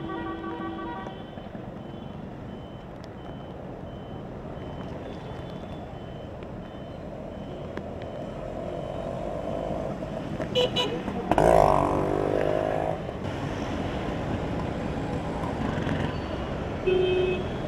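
Road traffic on a flooded street in heavy rain: auto-rickshaw and motorcycle engines under a steady hiss of rain and tyres through water. Horns honk briefly at the start and again near the end, with a louder burst from a passing vehicle about eleven seconds in.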